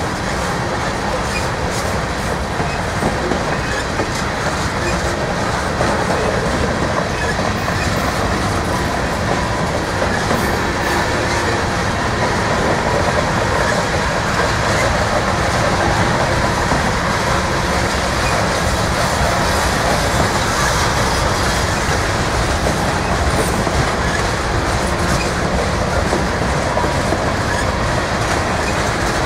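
Freight train of covered hopper cars rolling past close by: a steady noise of steel wheels running on the rail, with scattered clicks.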